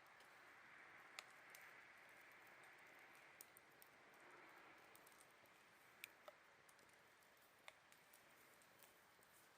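Faint campfire crackling, a few sharp pops of burning wood scattered through, over a soft steady chorus of autumn insects.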